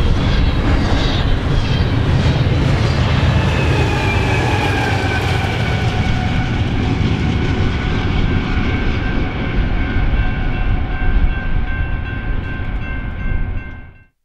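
Double-stack container freight train passing at speed: a loud, steady rumble of wheels on rail. A few steady high tones join partway through, and the sound cuts off suddenly near the end.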